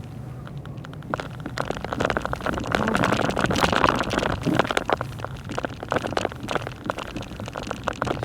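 Car on the move, heard from inside: a steady low rumble with dense, irregular crackling and pattering over it, louder from about two seconds in.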